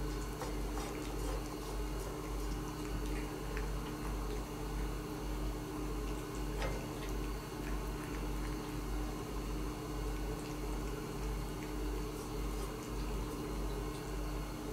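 Cat eating from a bowl: small wet chewing and licking clicks over a steady low hum.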